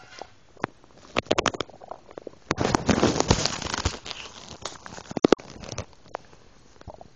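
Stomach gurgling with milk in it: crackly, bubbling pops. A cluster of clicks comes about a second in, a denser crackling run lasts about a second and a half in the middle, and a few sharp pops follow.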